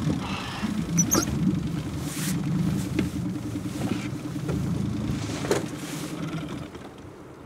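Small outboard motor running at low speed, moving the boat, with a few light knocks; the engine note drops away near the end as the throttle is cut.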